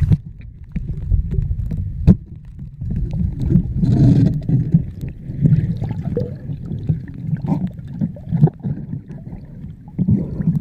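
Muffled underwater churning and bubbling around a submerged camera, with scattered knocks and one sharp knock about two seconds in.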